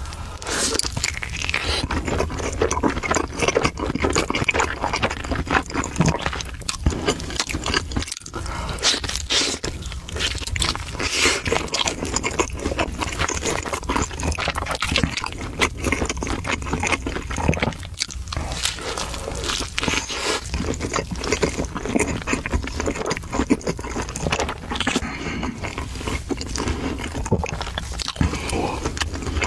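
Close-miked eating sounds of pizza being bitten and chewed: crisp crust crunching and wet mouth sounds, over and over without a break.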